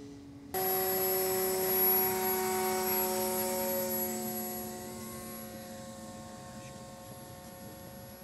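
Radio-controlled model airplane's motor and propeller: a steady whine with several overtones that starts suddenly about half a second in, then falls slightly in pitch and fades over the last few seconds.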